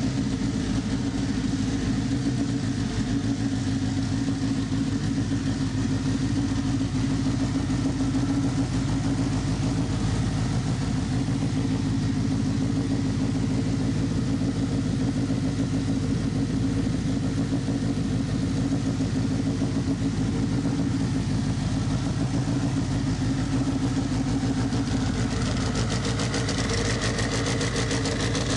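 Turbocharged Subaru flat-four engine fitted with aftermarket Crower camshafts, idling steadily with the hood open.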